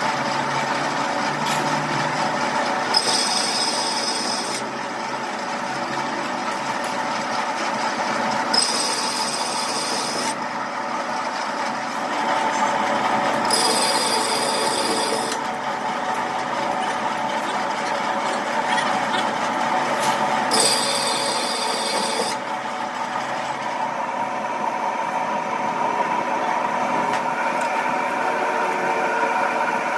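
A workshop machine running steadily. Four times, for a second or two each, a high-pitched rasp of metal being cut or filed comes over it.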